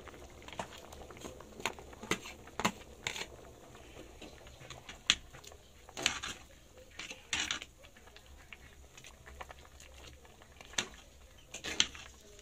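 Metal ladle clinking and scraping against a cooking pot while stirring soup: irregular sharp knocks and short scrapes, a second or so apart.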